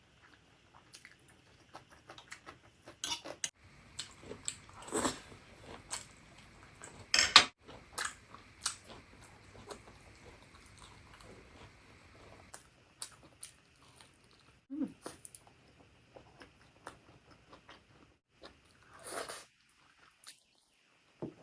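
Close-up eating sounds: chewing and biting into black bean noodles and smoked sausages, with utensils clicking against the dish. A few louder, sharper sounds come about five, seven and nineteen seconds in.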